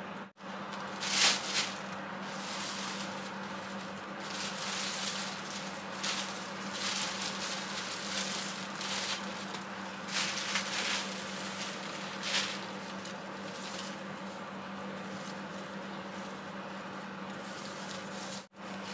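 Rustling and handling noises in short irregular bursts as potted hanging plants and their trailing foliage are lifted and moved, over a steady low hum.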